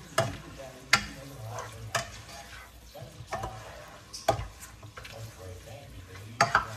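Chicken pieces sautéing in a pot, stirred with a spoon that knocks and scrapes against the pot about once a second, over a light sizzle.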